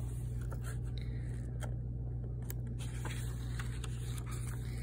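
Pages of a picture book being turned by hand, a few light paper rustles and clicks over a steady low hum.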